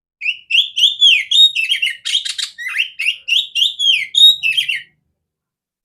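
Oriental magpie-robin singing a quick run of clear whistled notes and falling slurs, with a short scratchy, buzzy passage about two seconds in, for roughly four and a half seconds before stopping abruptly.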